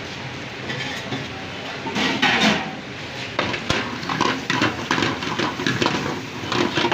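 Metal utensils clattering against a cooking pan in quick repeated strikes, starting about two seconds in, over a steady kitchen noise.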